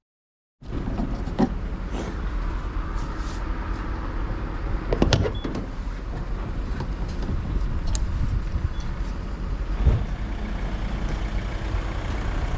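Off-road 4x4 vehicle engine running steadily under way, a low rumble with occasional sharp knocks and rattles; it cuts in abruptly about half a second in.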